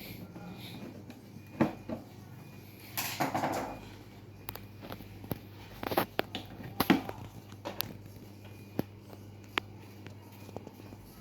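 Scattered sharp clicks and knocks, with a brief rustle about three seconds in, over a steady low hum.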